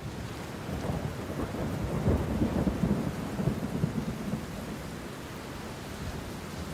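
Deep rolling rumble over a steady hiss, swelling about a second in, loudest around two to three seconds, then easing off.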